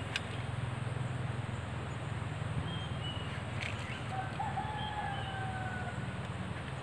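A rooster crowing faintly once, a drawn-out, slightly falling call about four seconds in, over steady outdoor background noise. A few short high chirps and two sharp clicks are also heard.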